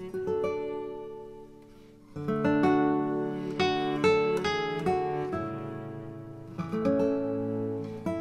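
Background music played on acoustic guitar: plucked notes and strummed chords that ring out and fade, quieter for a moment and then picking up again about two seconds in.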